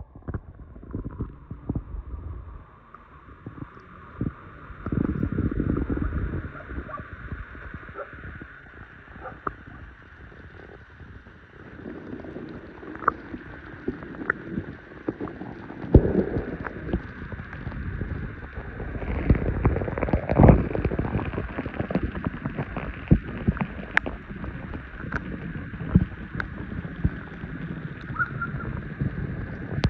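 Waves washing onto a beach, surging and falling back in rumbling swells, with wind buffeting the microphone and scattered sharp clicks.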